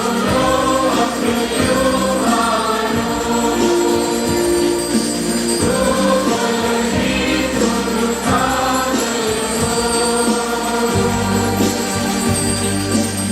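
A choir singing a liturgical hymn with instrumental accompaniment.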